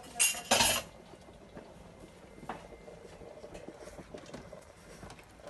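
Stirring in an Instant Pot's steel inner pot: a short scraping rustle twice near the start, then a few faint clicks of the utensil against the pot.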